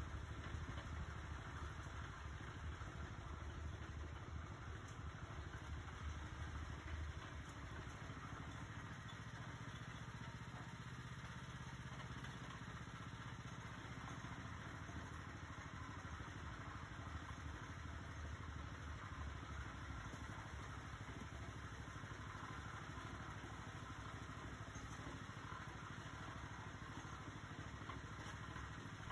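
Small gasoline engine of a tow-behind concrete mixer running steadily at idle, mixing concrete, with a faint clatter.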